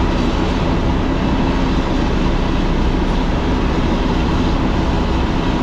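Truck engine running steadily under road and tyre noise, heard from inside the cab while driving.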